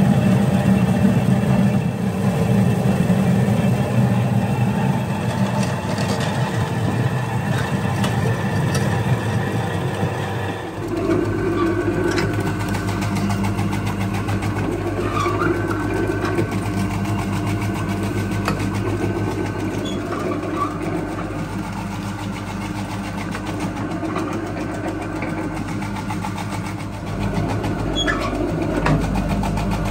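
Electric potato peeling machine running steadily, with potatoes tumbling in its steel drum. About ten seconds in it gives way to an electric potato shredding machine running, grating potatoes into thin shreds with light clicks and rattles.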